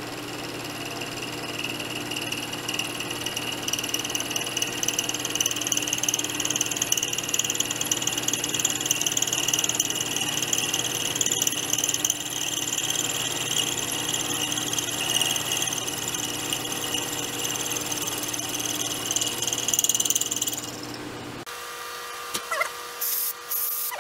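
Milling machine spindle running while a cutter is hand-fed with the quill into a metal part, a steady grinding cutting noise that grows stronger over the cut. The noise cuts off abruptly about 21 seconds in, followed by a few short clicks.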